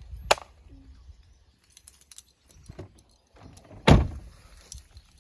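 Two sharp knocks about three and a half seconds apart: a short click first, then a much louder impact with a heavy low thud.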